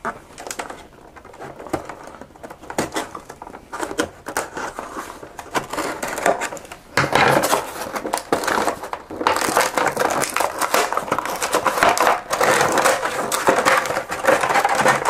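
An action figure's cardboard window box being opened and its clear plastic tray pulled out: scattered clicks and scrapes at first, then denser crinkling and rustling of plastic and cardboard from about seven seconds in.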